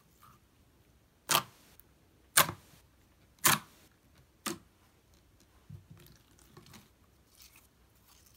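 Thick clear slime being pressed and poked by hand, giving four sharp clicks about a second apart, the last one weaker, then only faint soft squishes.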